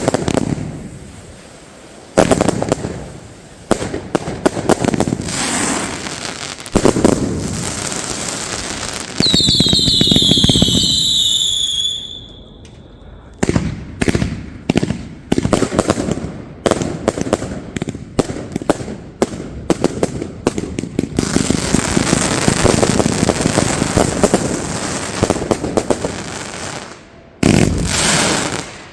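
Consumer firework cakes firing in a compound: repeated sharp bangs of shots launching and bursting, a whistling effect lasting a few seconds about nine seconds in, then a long stretch of rapid crackling bangs.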